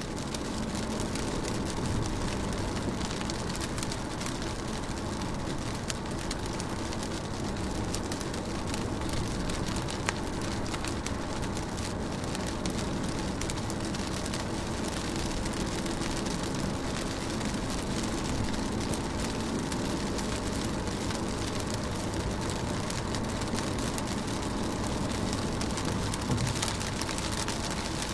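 Steady rain on a car window: an even hiss with scattered taps of single drops, over a low steady rumble.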